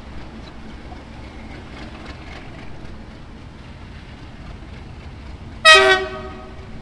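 Class 37 diesel locomotive, with its English Electric 12-cylinder engine, running slowly with a low rumble as it approaches, then sounding its horn in one short, loud blast near the end that quickly fades.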